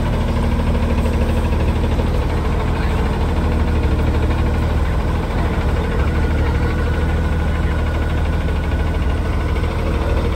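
Diesel semi-truck engine idling steadily with a deep, even hum.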